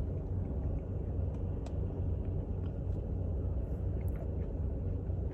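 Steady low rumble of a car idling, heard from inside the cabin, with a few faint clicks over it.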